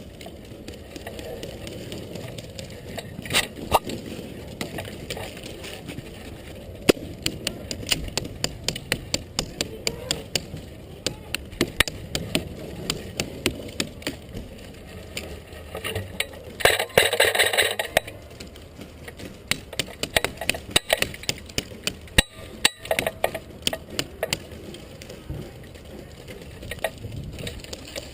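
Irregular clicks, cracks and rattles over a steady background, typical of an airsoft player moving with gear. About 17 seconds in there is a louder rushing burst lasting just over a second.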